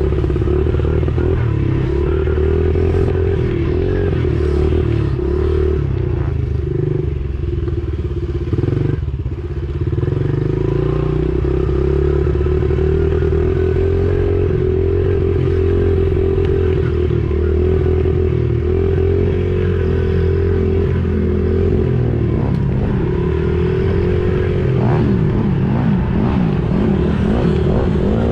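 Honda 70's small single-cylinder four-stroke engine running close by, its pitch wavering as the throttle is worked over rough going. There is a brief drop in engine level about nine seconds in, and rising and falling revs near the end.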